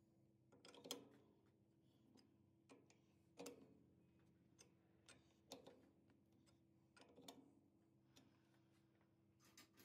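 Near silence: a faint low hum with soft, irregular metallic clicks, about eight in all, while the lathe's four-jaw chuck turns slowly with the plate held against the pressure pad.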